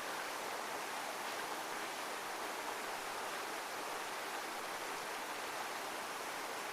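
Steady rush of heavily running water, like a waterfall: an even, unbroken hiss with no rise and fall.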